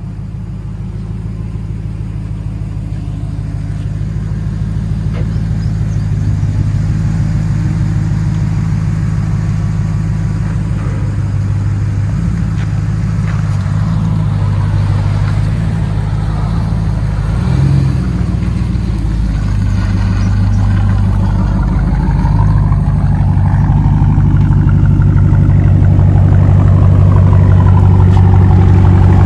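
Ram 1500 5.7 L Hemi V8 with a muffler delete, factory resonators kept, running through its exhaust. It grows steadily louder over the first several seconds, and the engine note swells a few times in the second half.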